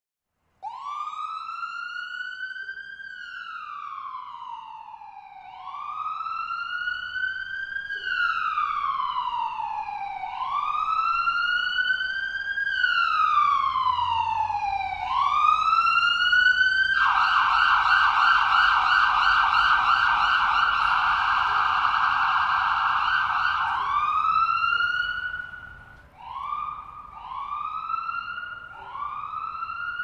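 Distant ambulance siren on a slow wail, its pitch rising and falling about every five seconds. It switches to a fast yelp for several seconds past the middle, then goes back to shorter rising whoops near the end.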